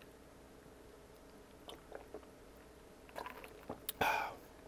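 Soft mouth clicks and swallows from a person drinking soda from a glass, then a short breathy exhale about four seconds in.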